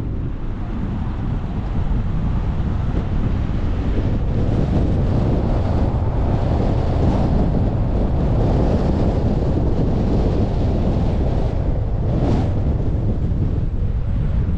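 Wind buffeting the microphone of a car-mounted camera while driving, over a steady low rumble of road noise, with one brief gust near the end.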